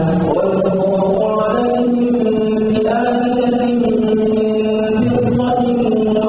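A man reciting the Quran in melodic chant, drawing out long held notes that glide from pitch to pitch without pause.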